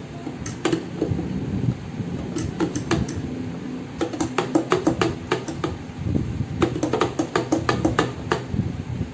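Metal spoon clicking and scraping against a measuring jug while stirring curry mix powder into water, in uneven runs of quick clicks that are thickest in the second half, over background music.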